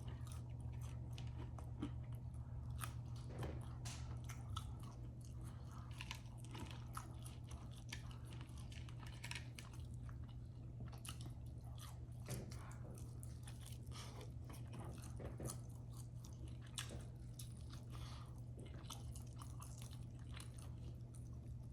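A person chewing crispy fried food, a continuous run of small irregular crunches and mouth clicks, over a steady low hum.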